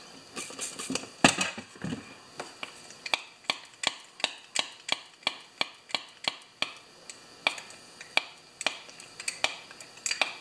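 Hand pressure pump with gauge being worked repeatedly to pressurise a two-stroke chainsaw crankcase for a crank-seal leak test, clicking about three times a second. The case is not holding pressure: air is leaking out somewhere.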